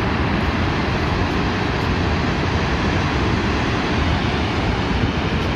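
Vøringsfossen waterfall plunging into its gorge: a loud, steady rushing noise with a heavy low rumble.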